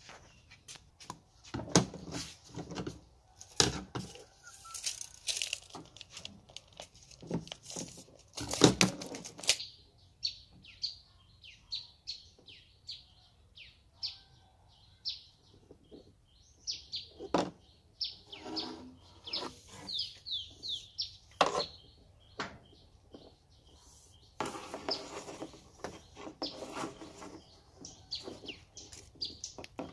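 Knocks and clatter of bamboo kite spars being handled on a wooden table, loudest in the first ten seconds. From about ten seconds in, a small bird chirps over and over in short falling chirps.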